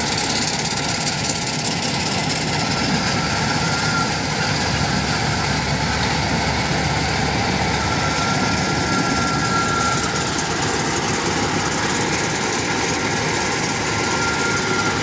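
Kubota DC105X combine harvester running steadily at close range, its diesel engine and threshing machinery making a continuous drone, with a faint high whine coming and going.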